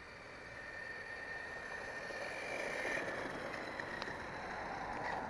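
Stock Sharper Image Mountain Thrasher toy RC truck running at full throttle, its small electric motor and gears whining over tyre noise on pavement. The whine grows louder over the first three seconds, then drops slightly in pitch.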